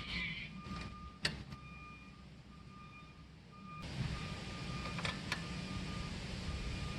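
A vehicle's reversing alarm beeping over and over in the background, over a steady low rumble. A few sharp metallic clicks sound about a second in and twice about five seconds in.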